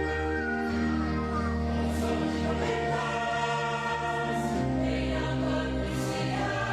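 A church choir singing a gospel hymn in held, sustained notes over a steady bass accompaniment.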